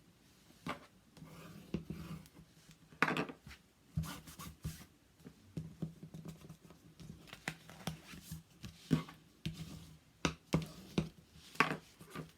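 Paper and card being handled, folded and rubbed down on a work surface: irregular scraping, rubbing and light taps.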